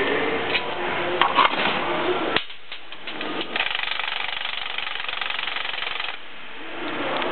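Cordless impact wrench hammering on the front pulley bolt of an Eaton Roots-type supercharger to loosen it: a steady rapid rattle from about three and a half seconds in that stops abruptly about six seconds in. A few sharp knocks come in the first couple of seconds.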